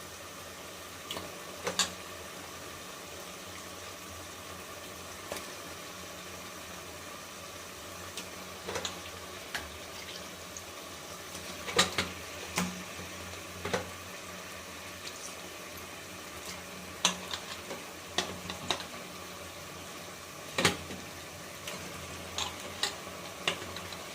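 Food cooking in a pan: a steady hiss, with scattered sharp clicks and knocks, loudest about halfway through and again near the end.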